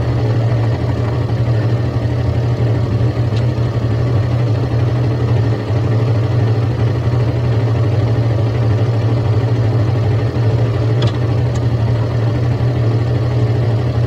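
Suzuki GSX-S150's stock single-cylinder engine idling steadily while stopped in traffic.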